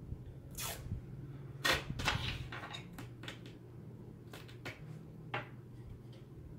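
Tape being pulled off the roll and torn in a series of short, scratchy strips, about eight in all, the longest near the start.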